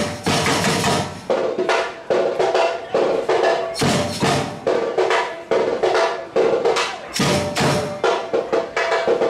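Samba batucada drum group playing a rhythm together on drums and hand percussion, with sharp repeated strokes over a steady beat.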